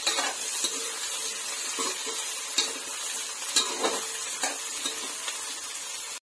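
Sliced radish and onion frying in hot oil in a metal kadhai: a steady sizzle, with a metal spatula scraping and clicking against the pan as the pieces are stirred. The sound cuts out for a moment near the end.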